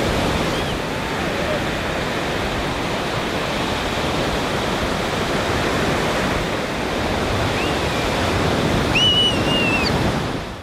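Surf breaking and washing up a sandy beach, a steady rush of waves. A short high-pitched call sounds about nine seconds in.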